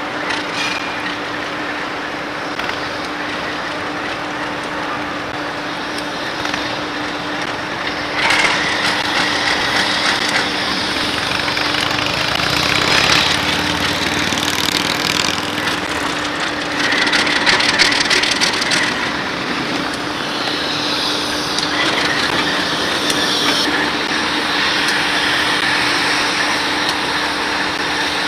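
Alco RS3 diesel locomotive running as it comes round a curve and passes close by, with wheel and rail noise. The sound swells several times in the middle as the unit draws level.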